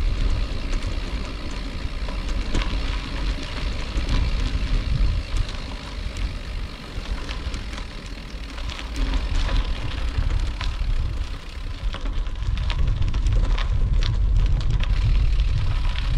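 A vehicle travelling along a road: a steady low rumble that swells and eases, with scattered clicks and knocks throughout.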